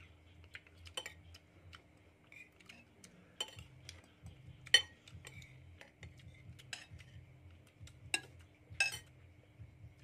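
Metal spoons clinking and scraping against ceramic bowls and plates while people eat: scattered sharp clinks, the loudest about five seconds in, with a quick pair near the end.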